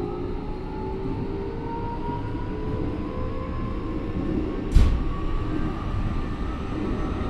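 Keikyu 1000 series EMU running, heard from inside the car: the Mitsubishi IGBT inverter and traction motors whine in several tones that slowly rise in pitch over the rumble of wheels on rail. There is one sharp thump about five seconds in. This car's motor sound is unusually loud, like the early GTO-type 1000 series.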